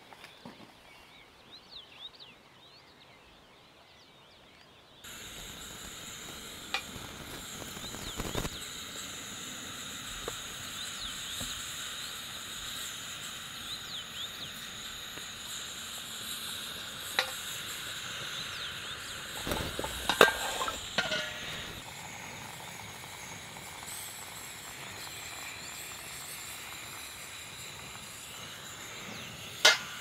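Portable gas camping stove hissing steadily under a steel Turkish double teapot as the water heats and steams, with a few sharp metal clinks from the pots. The hiss starts abruptly about five seconds in; before that there is only a faint high chirping.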